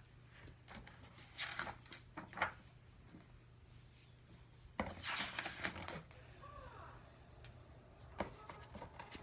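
Pages of a picture book being turned and handled: a few soft paper rustles, the clearest about a second and a half in and again around five seconds, over a faint low steady hum.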